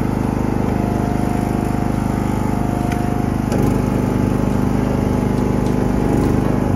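John Deere riding lawn mower engine running steadily. About halfway through its note changes and it gets a little louder.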